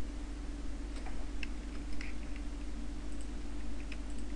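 A few scattered clicks of a computer keyboard and mouse, over a steady low electrical hum.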